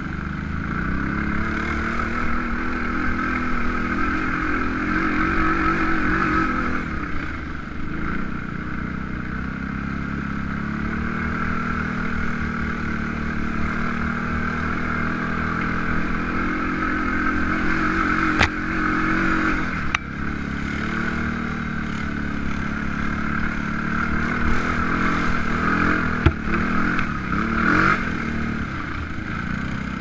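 Kawasaki KFX700 ATV's V-twin engine running on board as it is ridden over a rough dirt trail, its pitch rising and falling with the throttle. A few sharp knocks come through about two-thirds of the way in and again near the end.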